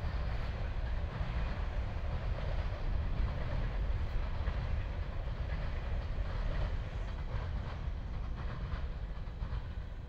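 Freight train's hopper cars rolling over a bridge: a steady low rumble with wheel clatter and a few clicks, easing off a little near the end as the last cars pass.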